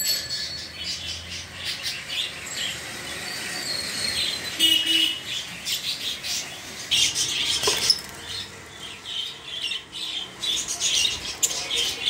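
Budgerigars chattering: a continuous run of short, high chirps and warbles that comes in busier clusters.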